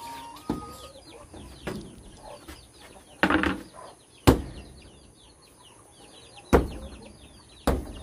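Birds calling: a pitched note holding steady and stepping up once before breaking off about a second in, over quick, faint, high chirps throughout. Five or six sharp knocks and one short rustling burst near the middle cut across them.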